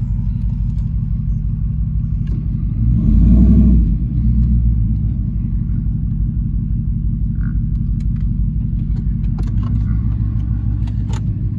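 Truck engine running with a steady low rumble, swelling louder for about a second around three seconds in.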